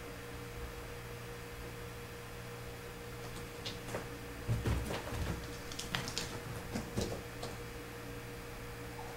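Steady low hum of a quiet room, with a cluster of soft thumps and scratchy clicks in the middle from kittens scrambling about and jumping onto a cloth-covered bed.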